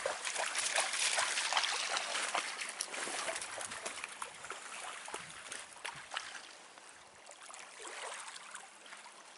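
A dog wading and splashing in shallow lake water at the shore, mixed with footsteps crunching on gravel and driftwood. The splashing and crunching are busiest in the first few seconds, then die down.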